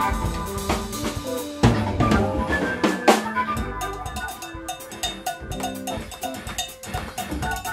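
Live jazz band playing, the Mapex drum kit to the fore with busy kick, snare and cymbal strokes and two hard accents about one and a half and three seconds in, over sustained electronic keyboard notes.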